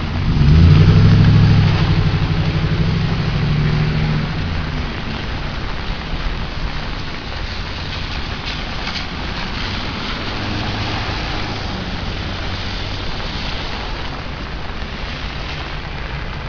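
A motor vehicle drives past on the wet road, its engine hum loudest for the first four seconds or so, then fading. A steady hiss of rain continues.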